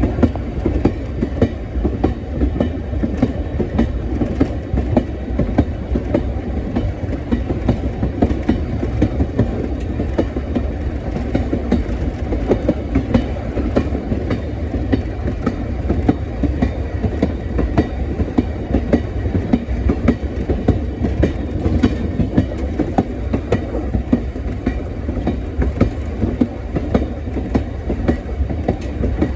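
Train running along the track: a steady rumble with a constant stream of clicks from the wheels over the rail joints.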